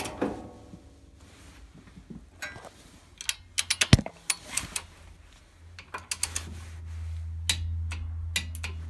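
Ratchet of a torque wrench clicking in short runs as head bolts on a Kohler K321 cylinder head are tightened down over a new head gasket, with one sharp metallic knock about four seconds in. A low steady hum comes in during the second half.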